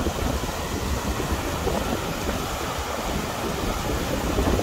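Strong wind buffeting the microphone with an uneven low rumble, over the steady rush of muddy river water pouring over a low rocky weir.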